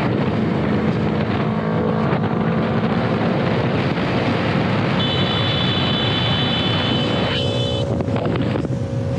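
Motorcycle ridden at highway speed with heavy wind rushing over the microphone, mixed with engine and traffic noise. A thin, high steady tone sounds for about three seconds past the middle, and the noise changes abruptly about seven seconds in.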